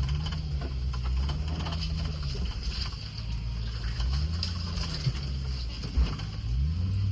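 Land Rover Discovery's engine running at low speed while crawling a rough trail, its pitch rising and falling as the throttle is worked. Two sharp knocks come about five and six seconds in.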